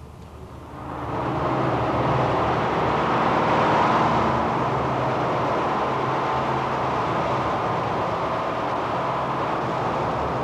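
Steady machinery noise in a works hall: a rushing noise with a low hum under it, swelling in about a second near the start and then holding level.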